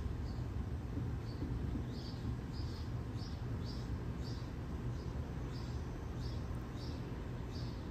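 Short high-pitched chirps repeating roughly every half second, stronger from about two seconds in, over a steady low hum.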